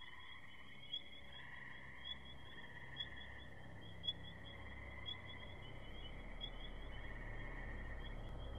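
Ambient sound piece: steady high trilling tones, with a short ping about once a second and a low hum that grows louder in the second half.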